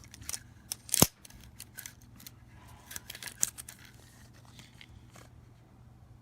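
Small hard parts being handled on a work surface: scattered light clicks and rustles, with one sharp click about a second in and a quick run of clicks a little after the middle.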